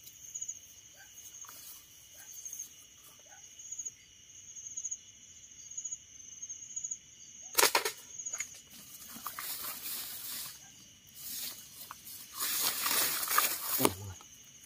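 Night insect chorus, crickets trilling steadily, with one sharp snap of a slingshot shot about halfway through, followed by several seconds of rustling in leaves and brush.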